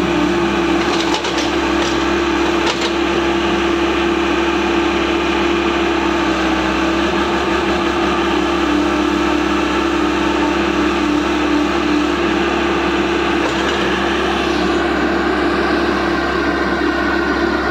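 Komatsu PC75UU-2 mini excavator's diesel engine running at a steady, even pitch while its arm and bucket move.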